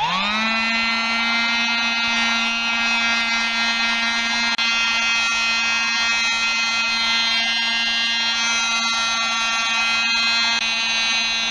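USB-powered mini vacuum cleaner switched on: its small electric motor spins up within a fraction of a second, then runs with a steady whining hum.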